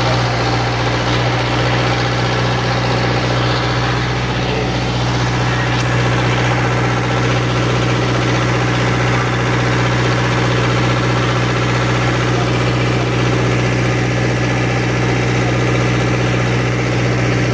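A vehicle engine idling steadily: a constant low hum with many overtones that does not change in pitch or loudness.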